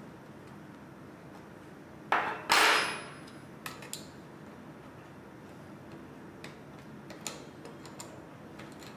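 Small metal parts clattering and clicking as the front axle's nut, spring washer and plain washer are taken off and set down: two loud clatters about two seconds in, then a few faint clicks.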